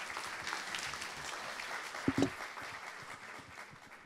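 Audience applauding at the close of a talk, the clapping slowly fading toward the end, with a couple of brief low thumps about two seconds in.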